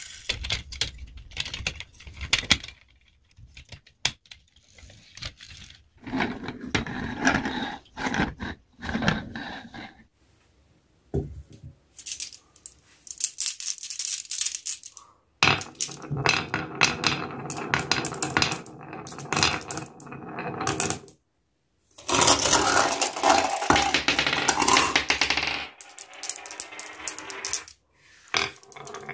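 Glass marbles rolling and clattering through the wavy channels of a HABA wooden wave-slope marble run, clicking against the wood and against each other. The clatter comes in several runs with short pauses between them.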